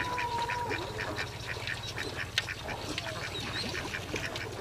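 A flock of ducks quacking in a rapid, continuous run of short calls, about four a second.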